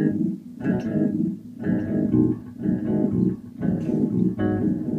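Electric bass guitar played through an amplifier: plucked notes in short phrases with brief dips between them.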